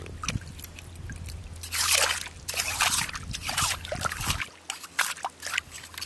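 Hands sloshing and splashing in a shallow puddle of muddy seawater, a run of short uneven splashes with the loudest about two seconds in.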